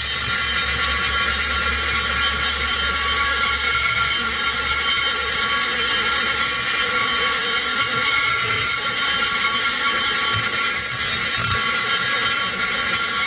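High-speed rotary grinder running with a steady high whine as it grinds metal, widening the exhaust port of a Husqvarna 266SE chainsaw cylinder.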